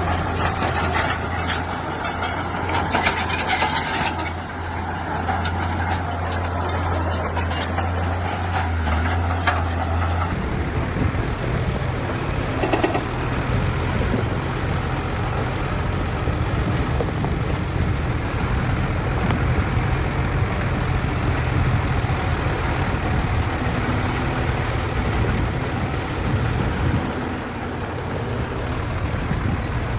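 Heavy diesel earth-moving machinery running, with metallic rattling over the first ten seconds; about ten seconds in the steady low engine note gives way to a rougher engine sound that runs on.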